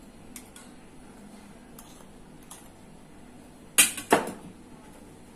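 A metal spoon clinking twice against a stainless steel bowl, two sharp ringing knocks about a third of a second apart near the end, as cornflour is tapped off the spoon; small faint clicks of the spoon before that.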